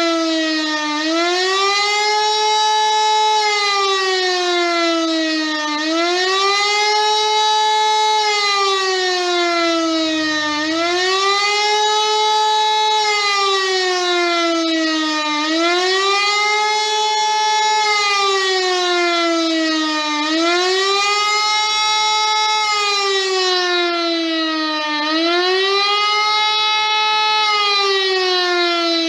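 Rooftop civil-defence siren sounding the German public-warning signal, a tone that swells up and down. The pitch rises quickly, holds briefly and then sinks slowly, about every five seconds.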